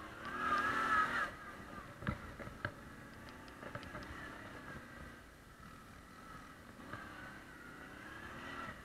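ATV engine running as the quad rides over a bumpy dirt track, its pitch rising and falling with the throttle and loudest for about the first second, with scattered knocks and rattles from the bumps.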